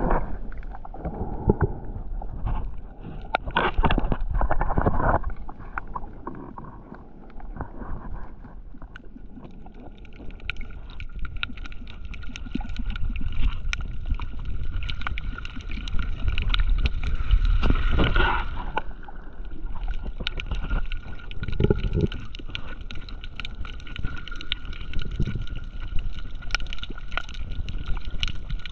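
Underwater sound of a coral lagoon while snorkelling: water gurgling and sloshing, with a low rumble and a scatter of sharp clicks. From about nine seconds in, a steady hum of a few high tones joins in.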